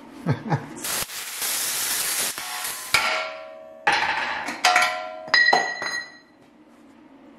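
About two seconds of loud hissing as the sheet steel around the indicator pod is cut, then a hammer strikes the welded-in steel pod about four times, each blow leaving the steel ringing, as the pod is knocked out of the grille panel to be redone.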